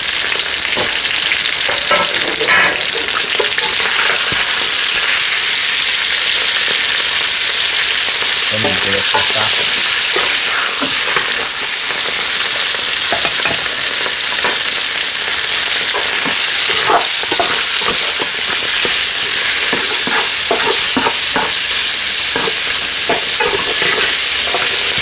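Minced meat and browned bone pieces sizzling in hot fat in a metal pot, stirred and scraped with a slotted metal spatula. Under the steady frying hiss come irregular scrapes and clacks of the spatula against the pot, most often in the second half.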